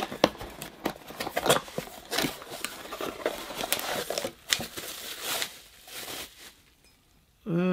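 A small cardboard gift box being opened and a mug in a clear plastic bag drawn out of it: plastic crinkling and rustling, with scattered clicks and taps from the cardboard, dying away near the end.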